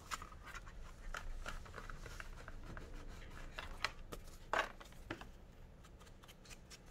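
Paper edges being distressed: a series of short, irregular scraping strokes along the paper's edge, with one louder stroke about four and a half seconds in.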